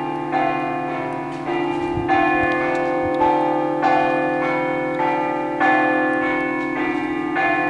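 Church tower bells played by hand in the Friulian scampanotade (grathade) style: several bells of different pitch struck in a lively rhythm, about two strokes a second, over their sustained ringing.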